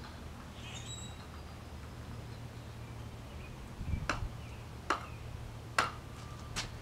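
A screwdriver jabbing down into a lithium battery in a metal cup: four sharp clicks, starting about four seconds in and roughly a second apart, with a dull knock at the first.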